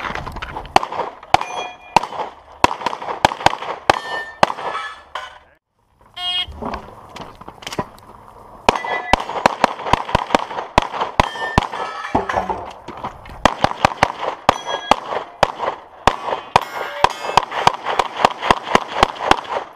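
Rapid strings of pistol shots fired through a practical shooting stage, with steel plates ringing with a clang after some of the hits. The firing breaks off for about half a second, five and a half seconds in, then carries on.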